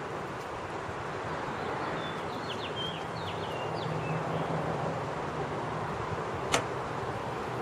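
Steady outdoor background noise, with a small bird chirping several quick notes between about two and four seconds in. A single sharp click about three-quarters of the way through.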